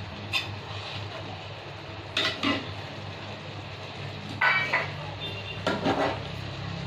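Metal utensils clinking against a cooking pan and plate as mackerel pieces are put into the masala: about six sharp clinks, one of them ringing, over a steady low hum.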